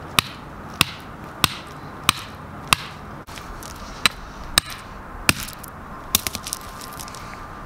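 Steel geological rock hammer tapping a small ammonite-bearing rock set on shingle, sharp hard knocks about two-thirds of a second apart, five in a row and then three more after a short pause, to split the rock along its middle for the fossils inside. About six seconds in, a quick run of smaller clicks follows.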